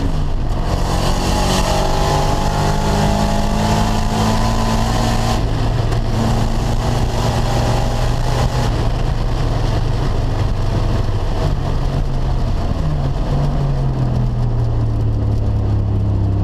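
Turbocharged 5.0 V8 of a 1995 Mustang GT heard from inside the cabin. The engine pitch, which had been climbing, drops abruptly right at the start, then runs at a fairly steady speed over wind and road noise, with a brief dip and rise late on.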